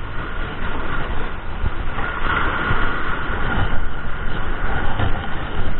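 Wind buffeting the camera microphone with an irregular low rumble, over the steady wash of small waves breaking and running up the beach.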